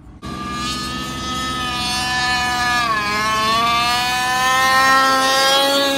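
A 1/5-scale RC truck's motor running hard, starting suddenly. Its pitch sags about halfway through as the throttle eases, then climbs back steadily.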